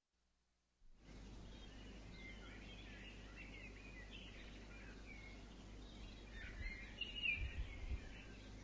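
Outdoor ambience of small birds chirping over a steady low rumble and hiss, starting about a second in. The chirps get busier and louder about seven seconds in.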